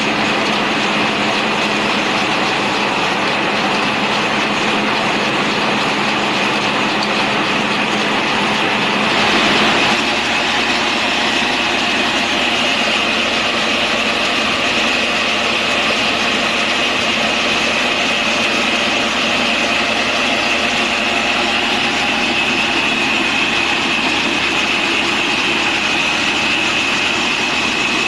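Sawmill machinery running steadily: a loud, continuous mechanical din with a steady high whine. About nine seconds in, the low hum shifts and the sound briefly grows a little louder.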